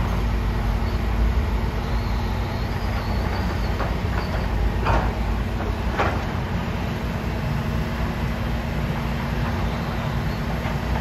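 Diesel engines of Hitachi hydraulic excavators running steadily while digging, with a few short knocks about five and six seconds in.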